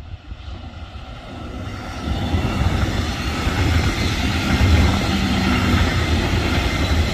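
Diesel-hauled Metronom double-decker passenger train passing close by: the rumble of the train on the rails swells about two seconds in and stays loud as the coaches go past.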